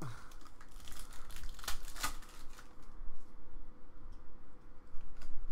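Baseball trading cards being handled and flipped through by hand, with crinkling packaging and a few sharp card snaps, busiest in the first two seconds and again near the end.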